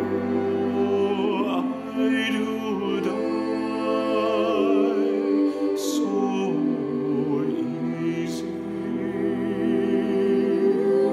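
Girls' choir singing slow, sustained notes with vibrato, accompanied by viola and cello holding a low line beneath the voices.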